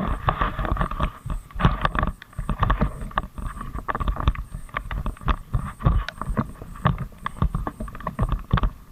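Bicycle ride in the rain: wind buffeting and rain noise on the microphone, with frequent sharp clicks and knocks and a steady chorus of frogs calling.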